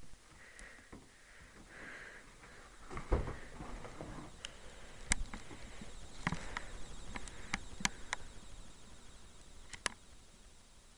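Close handling noise: scattered clicks and knocks, with one heavier thump about three seconds in, as a handheld camera is moved over a cardboard toy-set box. A couple of soft sniffs come near the start.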